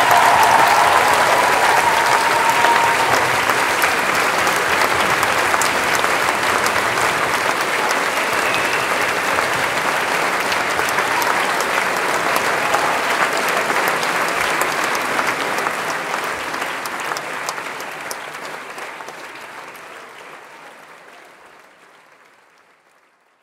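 Audience applauding steadily, with a voice or two calling out in the first few seconds; the applause fades out gradually over the last several seconds.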